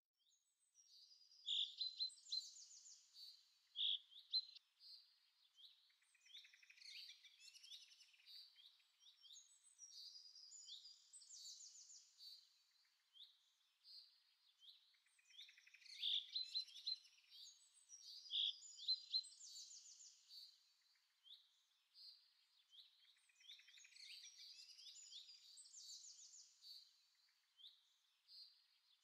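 Faint birdsong backdrop: songbirds chirping and trilling in short, high calls. The same sequence of calls repeats about every 15 seconds, like a looped recording.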